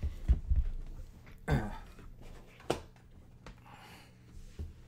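A computer keyboard being handled and set down on a desk: a couple of dull thuds early on, then a few sparse light clicks. A short vocal sound comes about a second and a half in.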